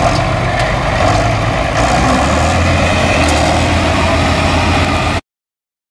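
A Farmall tractor's engine running steadily with a low drone. The sound cuts off abruptly about five seconds in.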